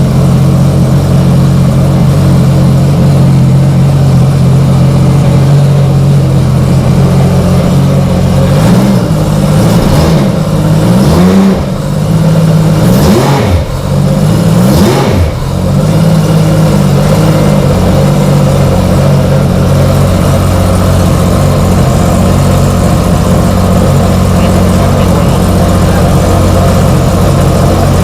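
Freshly installed 2009 Rotax 155 hp four-stroke three-cylinder engine running on its first start, idling steadily and smoothly. It is revved up and back down a few times between about a third and halfway through, then settles back to a steady idle.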